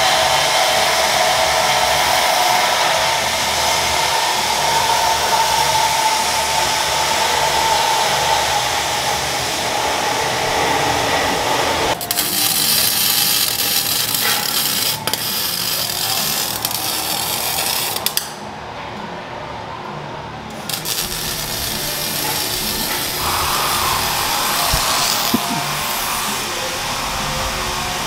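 Exhaust-shop fabrication noise: steady whirring and hissing from shop power tools and welding on a car exhaust, changing abruptly about 12, 18 and 21 seconds in.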